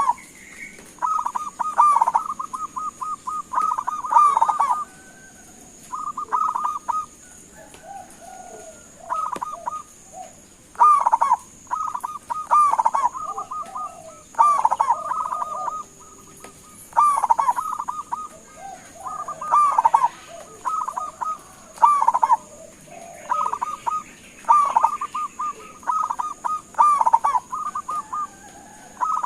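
Zebra dove cooing: phrase after phrase of rapid, staccato cooing notes, each phrase a second or two long, separated by short pauses.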